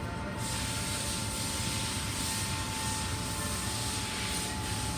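A steady hiss that starts about half a second in, over a constant low hum and a faint steady tone.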